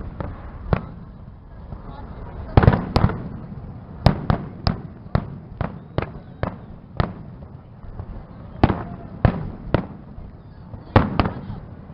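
Fireworks salute: shells bursting in a string of sharp bangs, irregular, about one or two a second, with quick clusters of several bangs about three seconds in and again near the end.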